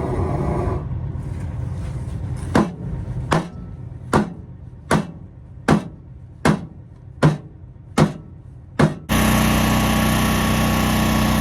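A hammer striking metal about nine times at an even pace, a little under a second apart, over a low engine idle. Near the end the sound switches suddenly to a steady, louder engine drone.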